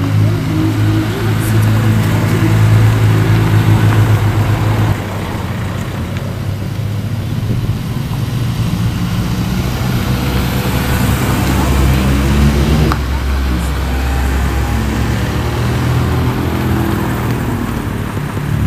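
Car engines running as a line of cars drives slowly past one after another; the low engine hum is loudest in the first few seconds and shifts in pitch as each car goes by, with a single knock about two thirds of the way through.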